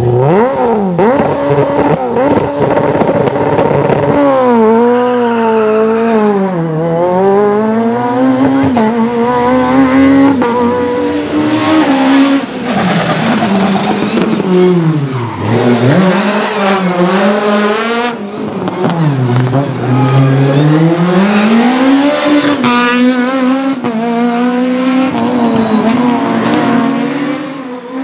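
Peugeot 306 Maxi Kit Car's naturally aspirated 2.0-litre four-cylinder rally engine driven hard, its revs climbing high and dropping back again and again through gear changes and lifts off the throttle.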